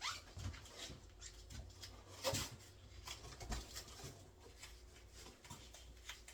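Faint scattered taps and rustles of cardboard pieces being handled and fitted together, with a sharper crackle about two seconds in.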